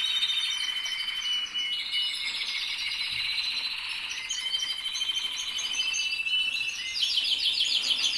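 Canaries singing: continuous high-pitched trills and warbling, with a louder, faster trill starting about seven seconds in.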